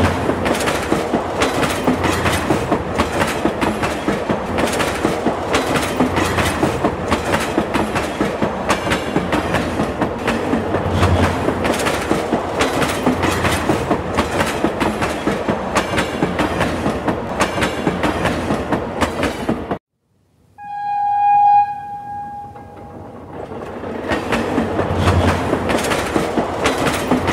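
Train running on rails with a steady clickety-clack of wheels. About twenty seconds in the sound cuts off suddenly, a single horn blast sounds for about two seconds, and the train's rumble builds up again.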